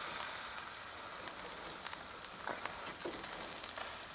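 Meat sizzling on a hot grill grate (pork skewers, bratwurst and patties), a steady hiss with occasional small crackles.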